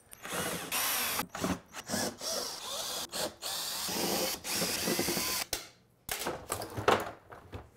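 Power drill running in several short bursts, its whine rising and falling, as screws are driven out of a Samsung dishwasher to take it apart; a brief stop just before the last burst.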